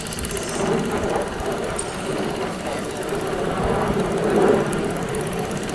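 Single-cylinder diesel engine of a Quick G3000 two-wheel hand tractor running steadily while it tills, with a fast regular firing pulse.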